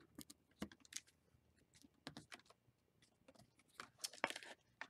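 Stiff, glued collage pages of a handmade book being handled and turned: faint scattered paper clicks and short rustles, with a longer rustle about four seconds in.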